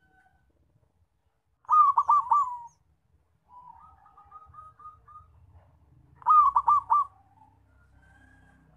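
Zebra dove (perkutut) singing: a short phrase of four quick, loud coos about two seconds in and another just after six seconds, with a softer run of short coos between them.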